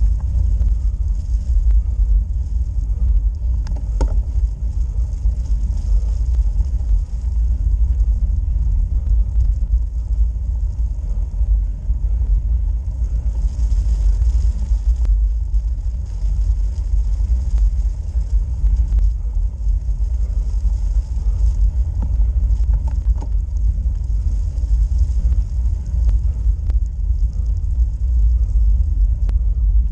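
Steady low rumble from a road bike climbing slowly, made up of tyre and road vibration and wind buffeting on the bike-mounted action camera. A faint hiss and a few light ticks sit on top.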